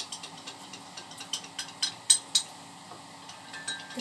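A cooking utensil tapping and scraping against a small frying pan as an egg is turned in it: scattered light clicks, with a few sharper taps about two seconds in.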